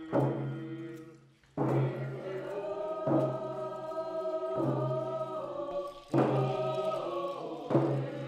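Music of chant-like singing, voices holding long notes over a sharp beat that comes about every second and a half.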